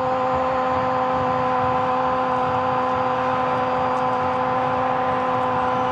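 Football commentator's long drawn-out "Gooool" goal shout, held on one steady note and sliding down in pitch just after the end, over a stadium crowd's noise.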